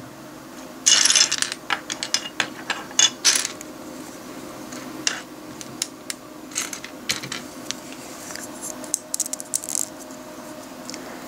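Small plastic LEGO pieces clicking and clattering as they are handled and snapped together, a flurry of clicks with a short rattle about a second in, sparser clicks after, and another cluster near the end.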